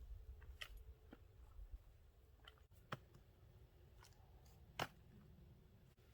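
Near silence with a few faint, sharp clicks and snaps, the loudest about three and five seconds in.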